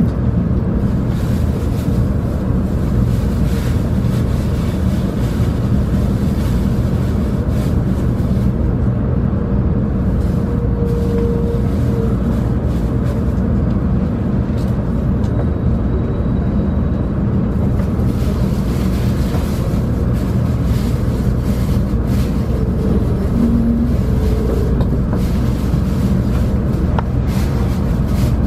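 Shinkansen bullet train heard from inside the passenger cabin: a steady low running rumble as it moves slowly, nearly stopped, with a few faint brief tones now and then.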